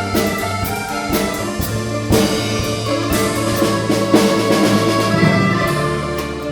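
Live performance by a folk-music ensemble: steady sustained bass notes under a busy run of sharply attacked notes in a driving rhythm, easing off slightly near the end.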